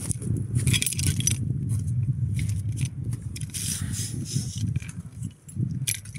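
Carabiners and other metal climbing hardware on a harness rack clinking and jangling in bursts, about a second in, again around three and a half seconds in, and near the end, over a steady low rumble.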